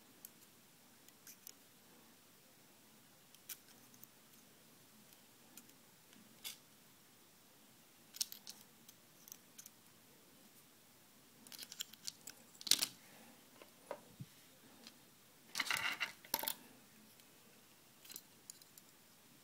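Scattered small metallic clicks and scrapes of pliers gripping and bending thin wire against a wooden stick, with two denser bursts of clicking and scraping in the second half, the louder one about three-quarters of the way through.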